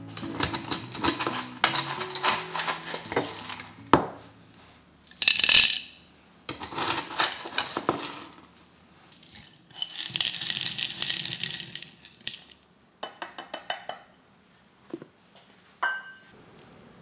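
Lumps of rock sugar spooned from a stainless steel bowl and dropped into a large glass jar of green plums, clattering and clinking against the glass and fruit in a string of separate pours, the loudest about five seconds in. Soft background music fades out in the first few seconds.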